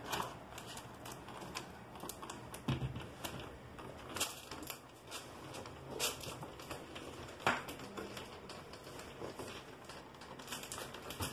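Scattered knocks and clicks of a vinyl double-hung window frame being set into its wall opening, bumping against the framing, with a duller thump about three seconds in.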